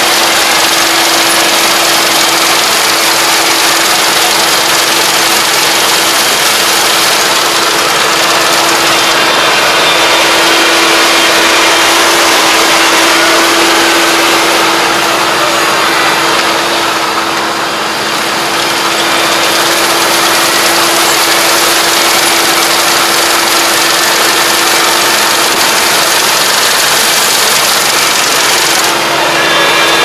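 Iseki four-row combine harvester running as it cuts rice: a loud, steady machine noise with one constant droning tone through it, easing slightly about halfway through.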